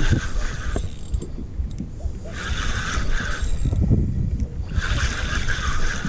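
Penn Spinfisher spinning reel being cranked in spurts, its gears whirring for about a second at a time, three times, as a hooked yellowtail snapper is reeled up. A steady low rumble runs underneath.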